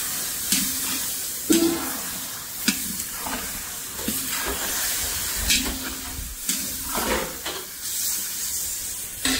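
Chicken frying in a pot, sizzling steadily, with several sharp clicks and knocks scattered through it.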